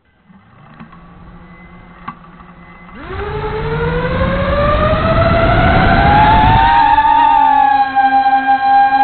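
Multirotor drone's brushless motors with 5-inch three-blade propellers spinning up about three seconds in. The whine rises in pitch for several seconds as the drone lifts off, then holds steady in flight.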